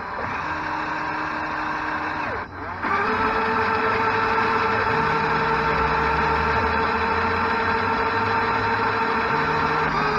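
LEGO Technic electric motors and their gear trains whining steadily. The whine cuts out briefly about two and a half seconds in and comes back louder and steady, with lower tones switching in and out every few seconds.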